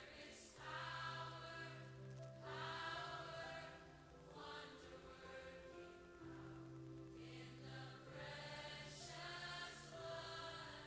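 Quiet background music of sustained choir-like voices over a steady low held note, swelling in soft phrases about every two seconds.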